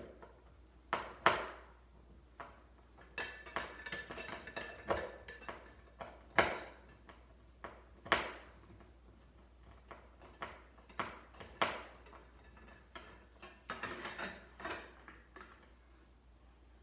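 Irregular sharp knocks and clicks with stretches of scraping and rattling, from hard parts being handled and fitted while mounting a smoke alarm; the three loudest knocks come about a second in, past the middle, and shortly after.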